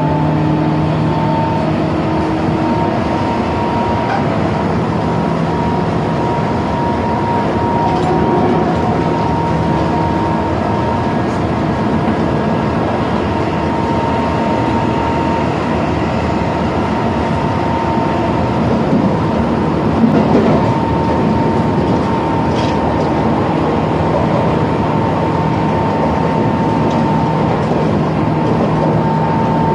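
Tobu 10030 series electric train heard from inside the car while running at steady speed. Wheels rumble on the rail under a steady motor whine, with a brief louder patch about two-thirds of the way through.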